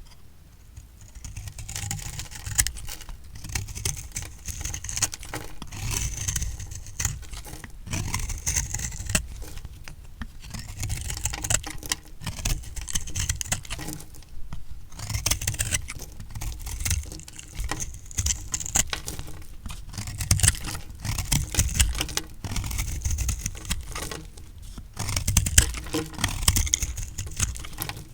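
Knife cutting through a block of recycled soap: dense crunching and scraping strokes in runs of a few seconds, with short pauses between them.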